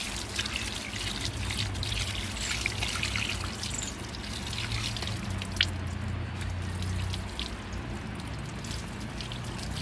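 Water trickling and splashing over a singed goat head as it is rinsed clean on a stone slab, with hands rubbing the wet head.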